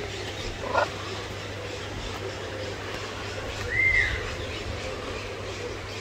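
Birds calling in an aviary over a steady background hum: a short rising call a little under a second in, then a louder single call that rises and falls about four seconds in.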